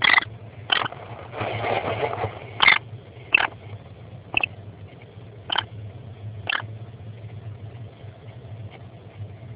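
An American kestrel moving about in a nestbox lined with wood chips: about seven short, sharp clicks at uneven spacing, and a rustling scrape through the wood chips about a second and a half in. A steady low hum lies beneath.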